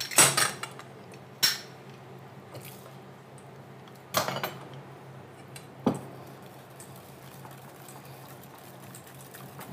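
Kitchen clatter as lemon halves are juiced with a handheld lemon squeezer: a few sharp clacks at the start, a single clack a second or so later, a short cluster about four seconds in and one more clack near six seconds, with a faint steady hum between them.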